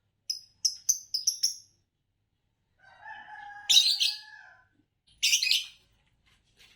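Green Fischer's lovebirds chirping: a quick run of about six sharp, high chirps in the first second and a half, then two loud, harsh screeches about a second and a half apart. A lower, drawn-out call sounds under the first screech.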